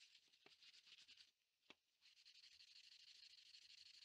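Hand sanding the inside curve of a laminated pine tray with sandpaper: faint, fast rasping strokes that stop for a moment about a second in, with a light tap, then carry on.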